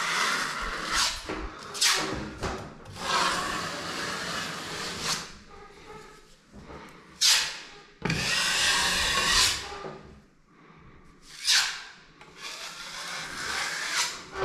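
Wall filler (joint compound) being spread and smoothed on a wall with a plastering tool: several long scraping strokes of one to three seconds, with a few short, sharp scrapes in between.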